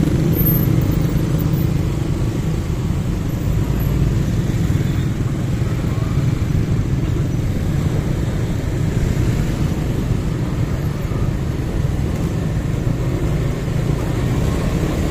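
Motorcycle engine running steadily at low speed in slow, congested traffic, mixed with the continuous low drone of the motorbikes and cars around it.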